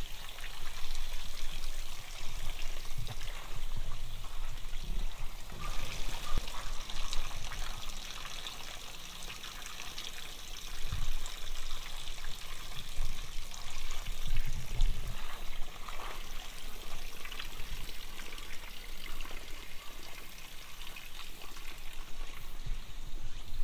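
Water trickling and splashing from the spouts of a shrine's stone temizuya purification basin, a steady splashing with a few dull low thumps.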